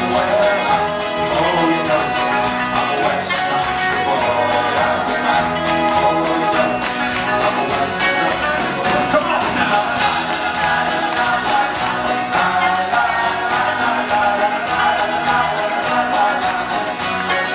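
Live folk band playing an upbeat country-folk song, with strummed acoustic guitar, fiddle and drums to a steady beat.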